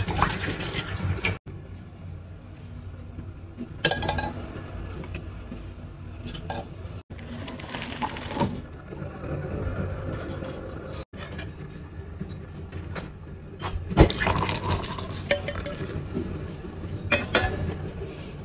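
Kitchen clatter: a steel saucepan, dishes and cutlery clinking and knocking in short bursts, with milk poured into the saucepan at the start and one sharp knock, the loudest, near the end.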